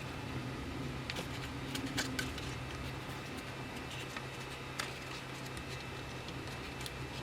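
Keys of a Digital Alliance Meca 8s mechanical keyboard with stock Outemu switches being pressed now and then, each one a sharp click, irregularly spaced, over a steady low hum.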